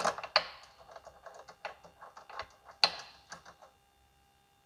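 Quick, irregular light metallic clicks and taps as short M8 bolts are fitted and started into the cable lugs on the inverter's terminal pads. The clicks stop about three and a half seconds in.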